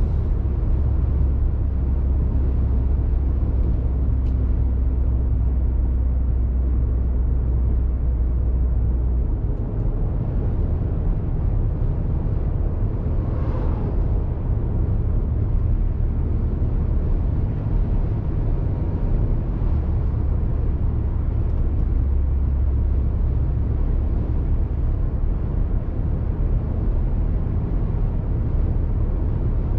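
Steady road and tyre noise and a low engine drone from a car cruising along a highway, heard from inside the cabin, with one brief swell in the hiss about halfway through.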